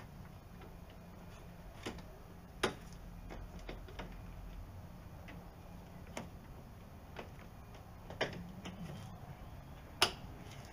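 Scattered light clicks and taps, a few seconds apart and the sharpest about two and a half seconds in and near the end, from hand work at the raised rear liftgate of a Jeep Cherokee XJ. A faint low hum runs underneath.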